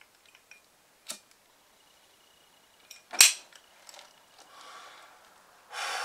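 Flip-top Zippo-style metal lighter being worked to light a cigarette: a sharp metal click about a second in, then a louder clack a little after three seconds with small ticks around it. Near the end comes a long breath out of cigarette smoke.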